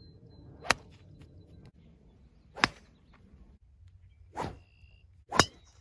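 Golf clubs striking the ball: four short, sharp cracks of club on ball, the third one duller and drawn out, each on a quick swing.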